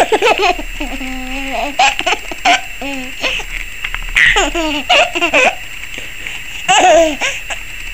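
A baby laughing in a string of short bursts of giggles and belly laughs, loudest near the end.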